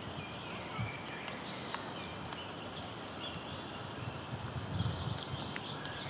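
Lakeside nature ambience: a steady outdoor hiss with small birds chirping and twittering faintly and repeatedly. A low rumble swells about four to five seconds in.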